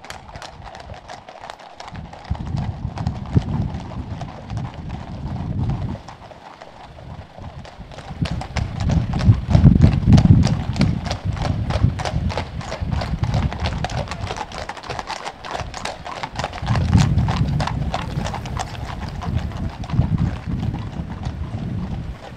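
Several horses' hooves clip-clopping at a trot on a wet tarmac road, many quick strikes overlapping. A low rumble comes and goes underneath.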